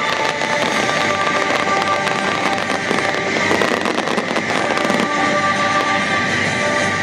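Fireworks crackling and popping in quick succession over music playing through a sound system; the crackling thins out about five seconds in.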